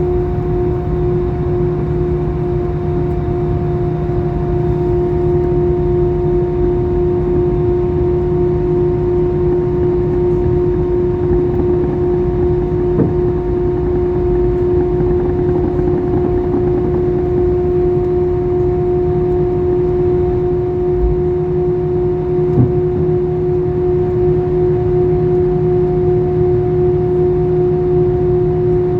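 Airbus A320 jet engines running steadily, heard from inside the passenger cabin: a constant rumble with a steady whine. There is no rise in pitch or loudness.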